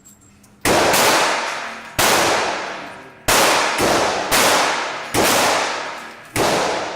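Gunshots echoing in an indoor shooting range: six sharp reports about a second apart, each trailing off in a long echo.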